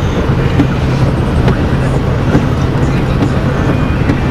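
Steady engine hum and road noise heard from inside a moving car.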